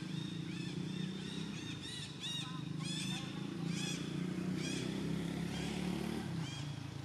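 Short, high, arched chirping animal calls repeating several times a second, over the steady low drone of an engine that stops near the end.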